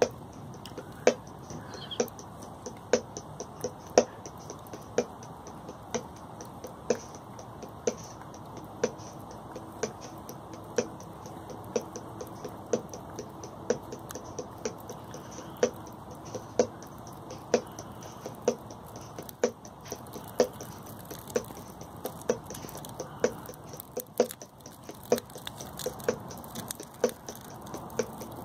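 A slow, even beat of sharp knocks, about one a second, over a steady low background.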